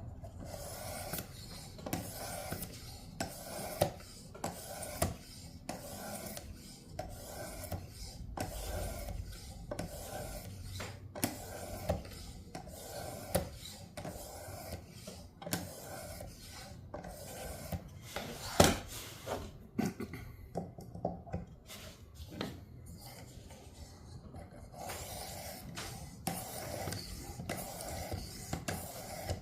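Knife blade stroked back and forth over a Work Sharp sharpener's abrasive plate, a run of rasping strokes about two a second. Near the middle there is one sharp click and a few seconds of sparser strokes, then the steady stroking resumes.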